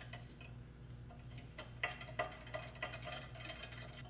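Light metal clicks and taps from optomechanical mount parts being handled and fitted on a rod assembly, coming more often after about a second and a half, over a steady low hum.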